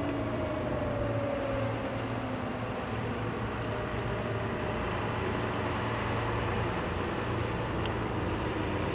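Distant outdoor warning sirens winding down, their falling pitch fading out in the first second or two. A steady low rumble and hiss remain.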